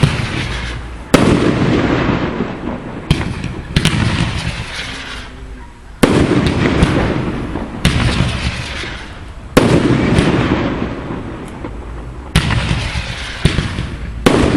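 Fireworks display: aerial shells bursting with sharp bangs every one to three seconds, about eight in all, each trailing off in a long, dense crackle.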